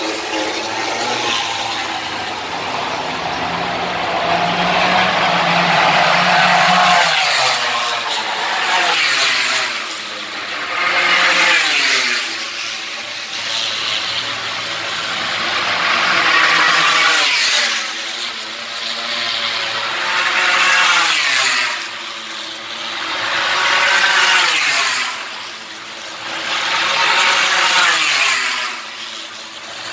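MotoGP racing motorcycles' four-cylinder engines passing one after another at full throttle, about six bikes. Each engine note rises to a peak and drops in pitch as the bike goes by.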